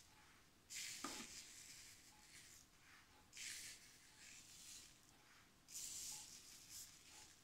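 Faint hissing rustles of table salt being pinched from a bowl and sprinkled by hand onto wet glue on paper, in a few short bursts.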